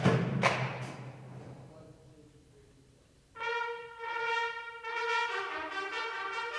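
Sports band playing live: a loud drum-heavy passage ends with a final struck hit that rings away to near silence. About three seconds later the brass section enters with held chords led by trumpets and keeps playing.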